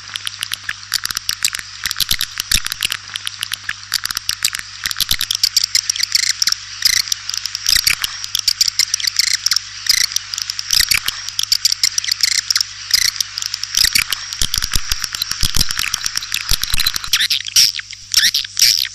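White-nest swiftlets calling: a dense, continuous chatter of rapid clicks and high twittering chirps. It is the swiftlet 'call' sound that is played to lure the birds into a nesting house. A faint steady electrical hum lies underneath.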